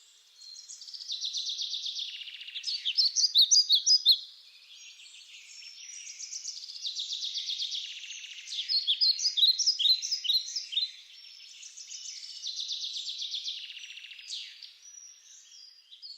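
Bird song in three bouts, each starting with a rapid buzzy trill. The first two end in a run of louder sharp chirps, about two and a half seconds in and again around nine seconds in.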